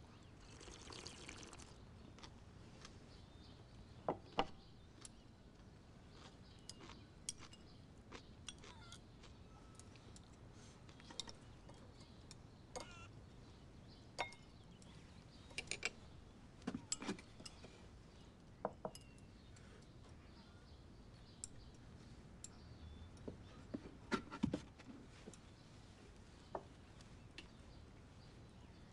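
Quiet table sounds of a meal: a soft slurp of soup from a wooden bowl in the first couple of seconds, then scattered light clicks and taps of chopsticks against rice and soup bowls.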